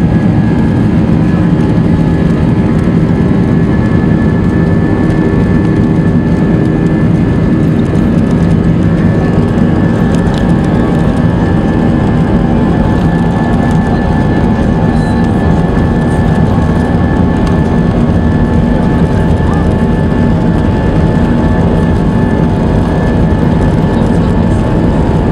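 Airbus A320 jet engines running, heard from inside the cabin: a steady loud rumble with a high engine whine, as the airliner rolls along the ground.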